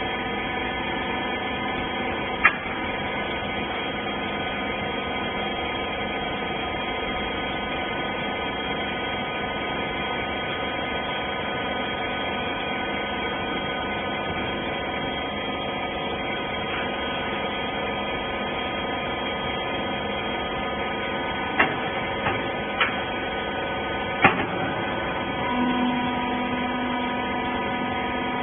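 Rag baler's electric hydraulic pump unit running with a steady hum made of several fixed tones, broken by a few sharp clicks or knocks. About three-quarters of the way through, a new steady lower tone joins the hum.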